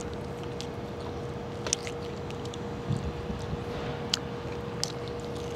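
Steady outdoor background noise with a faint constant hum, broken by a few brief sharp clicks.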